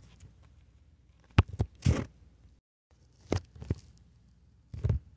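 Handling noise from the recording phone being moved by hand: a few short knocks and rustles, with a sharp click about a second and a half in and further bumps a little after three seconds and near the end.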